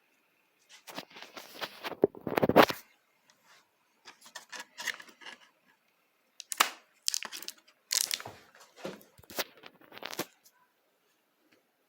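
Clicking, scraping and crackling of hard plastic and small parts being handled and pried, as on a laptop's underside while the SSD is taken out, coming in four short clusters with the loudest about two and a half seconds in.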